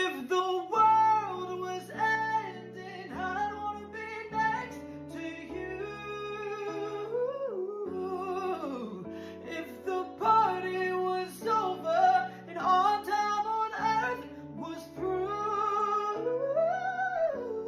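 A solo voice singing a melodic song over guitar accompaniment, the chords changing about once a second.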